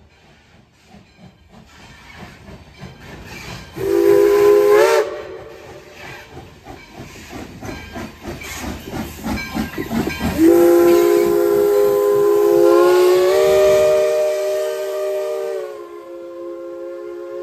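Baldwin 0-6-0 steam locomotive No. 58 approaching and passing close by, its exhaust chuffing louder as it nears. Its steam whistle blows twice: a short blast about four seconds in, then a long one from about ten seconds in that steps up in pitch partway and trails off more softly. Near the end the coaches roll past.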